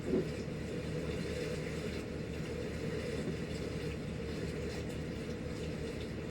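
Steady low rumbling noise, like a running engine or vehicle, with a brief thump just after the start.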